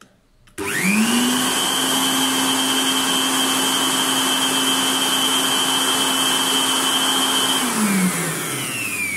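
Handheld electric air blower switching on and spinning up within a second to a steady, loud whine as it drives air through an acrylic venturi eductor into a cloth bag. Near the end it stops and the whine falls as the motor winds down.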